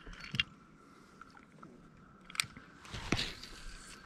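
A few small clicks and crunchy knocks from handling a spinning rod and reel on a boat, the sharpest a little past halfway, over a faint steady high hum.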